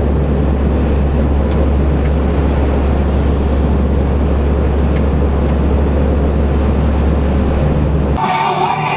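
Renault Magnum 440 truck under way, heard inside the cab: a steady low engine drone with road noise. About eight seconds in it cuts off abruptly to rock music with guitar and singing.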